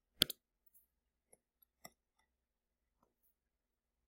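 A few sharp clicks of a mouse or stylus working a note-taking program: a loud double click just after the start, then three fainter single clicks spread over the next few seconds, with near silence between.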